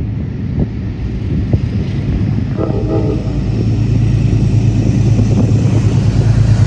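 Train running past on the track: a steady low drone that grows louder, with scattered clicks and a brief pitched tone about a third of the way in.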